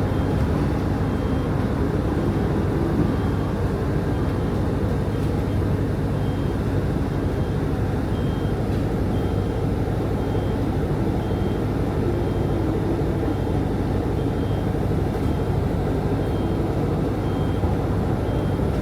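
Steady interior sound of a city bus on the move: engine rumble and road noise. From about six seconds in, a faint high beep repeats about once a second.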